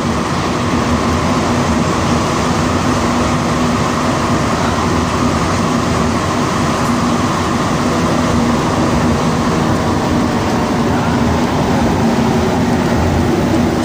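Montreal Metro AZUR (MPM-10) rubber-tyred subway train running at speed through a tunnel, heard from inside the car: a steady, loud rumble of tyres and running gear with a steady hum under it.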